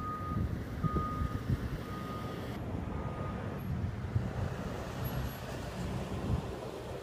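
A vehicle's backup alarm beeping about once a second, single high beeps that stop about halfway through, over a steady low rumble of vehicle noise.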